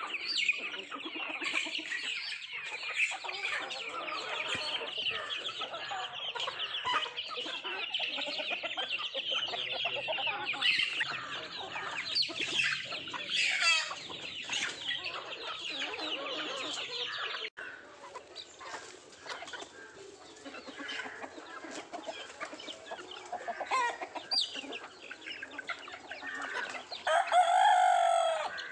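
A flock of country chickens clucking and chirping busily while feeding. The busy chatter drops off abruptly about two-thirds of the way through and carries on more quietly. Near the end there is one loud call, likely a rooster crowing.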